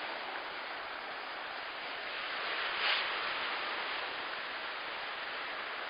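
Steady hiss of waves washing on the shore, swelling briefly about three seconds in.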